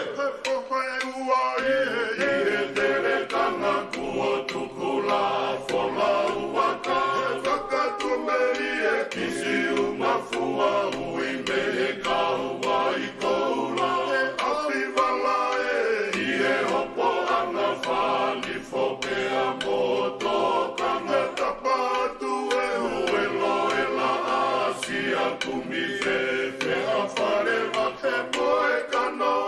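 A choir singing, several voices sustaining notes together in phrases, with the lower voices dropping out every few seconds.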